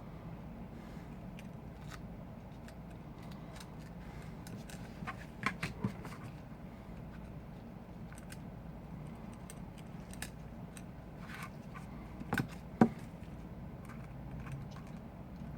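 Small clicks and taps of hand tools and small parts being handled during iPhone 5 repair work, over a steady low hum. A few clicks come together about a third of the way in, and the sharpest click comes later on.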